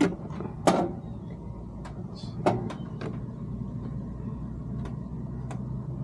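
Irregular sharp clicks and taps, about eight in six seconds, from multimeter test probes and fingers on the terminals and wiring of an HVAC unit's control panel, over a steady low hum.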